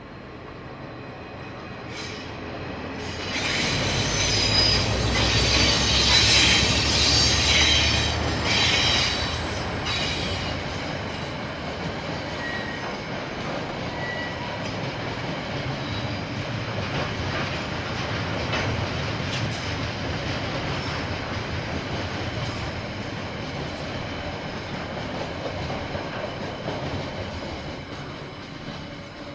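KiwiRail freight train passing: the diesel locomotive's low engine rumble and high wheel squeal build to a peak a few seconds in. Then the container wagons rumble past steadily, fading near the end.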